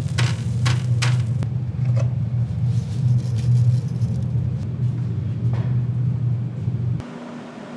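Steady low rumbling hum of kitchen equipment, with a few sharp clinks in the first second and a half. It cuts off abruptly near the end, and a quieter, higher-pitched hum takes over.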